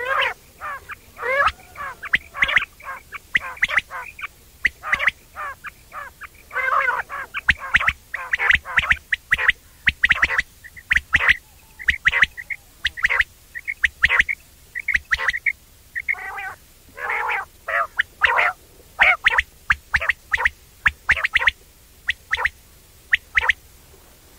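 Quail calling again and again: a quick run of short, sharp notes with short gaps, some notes held briefly. This is the call type known as the 'wong wong' call.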